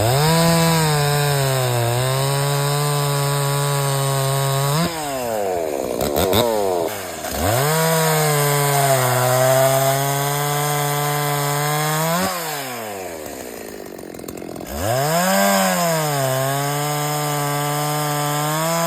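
Stihl 024 two-stroke chainsaw, its muffler's centre baffle gutted and fitted with a homemade open muffler cap, run up to high revs three times. Each run is held for several seconds, then the saw drops back toward idle.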